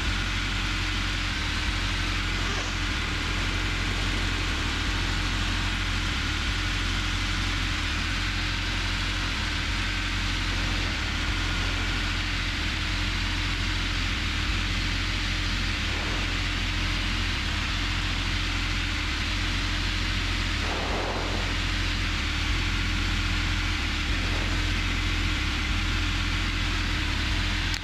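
Robin DR400 light aircraft's piston engine and propeller droning steadily in flight, heard from inside the cockpit, with a constant low rumble and a rushing hiss of airflow.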